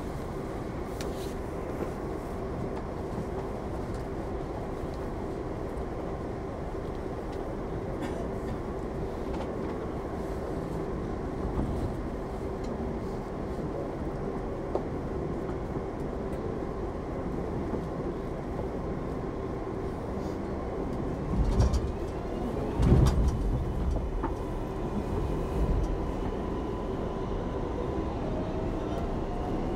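New York City subway 7 train running: a steady rumble with a steady hum. A cluster of loud knocks and rattles comes a little past two-thirds of the way through, and a whine rises in pitch near the end.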